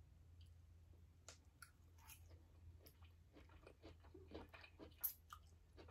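Faint chewing of green beans, small mouth clicks and crunches that grow busier in the second half, with one sharper click near the end.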